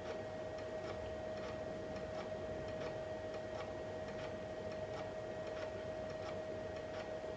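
Hard drive of a 386 laptop clicking at an even pace, about twice a second, as DOS setup prepares the disk, under a steady high-pitched electronic whine.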